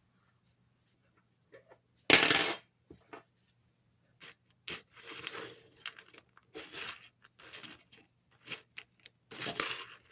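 A dog tearing and chewing at a cardboard cereal box, in irregular bursts of ripping and crunching, the loudest about two seconds in.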